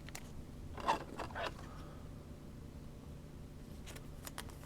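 Trading cards being handled: a few brief soft rustles and slides about a second in and faint clicks near the end, over a low steady hum.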